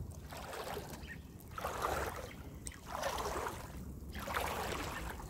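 Kayak paddle dipping and pulling through lake water in steady strokes: a rhythmic swish about once a second.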